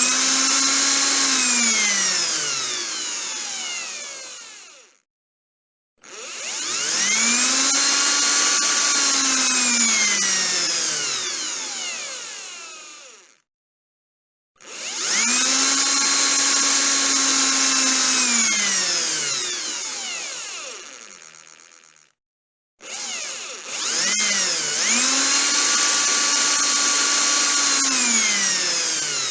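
Electric drill motor run up and released several times. Each run starts with a quick rising whine, holds steady for a few seconds, then drops in pitch as the motor coasts to a stop. One run is already going at the start and winds down, two full runs follow, and a fourth starts near the end.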